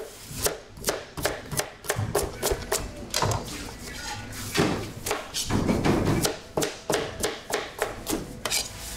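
Chef's knife chopping carrots on a cutting board: a steady run of sharp knocks of the blade on the board, about three a second. About two-thirds of the way in there is a stretch of rubbing and scraping as the chopped carrot is gathered by hand.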